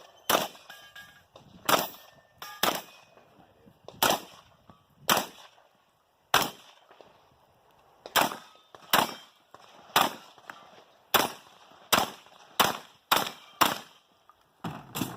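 Rock Island Armory VR-80 semi-automatic 12-gauge shotgun fired in a string of about fifteen shots during a 3-gun stage. The shots come roughly a second apart, then quicker, about two a second, in the last few seconds.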